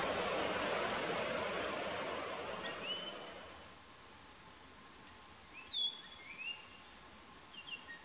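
Asian stubtail singing its insect-like song: a rapid, even series of very high, thin notes, about seven a second, that stops abruptly about two seconds in. After it come fainter, clear whistled notes of Japanese grosbeaks, a few short phrases.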